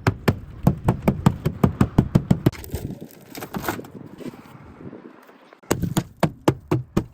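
Rapid hammer blows on car body metal, about four to five a second. They break off for a couple of seconds midway, then start again.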